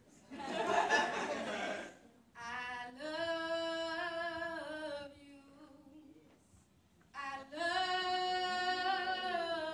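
A woman singing solo without accompaniment, holding two long notes with a short pause between them. A brief rush of noise comes about half a second in, before the singing starts.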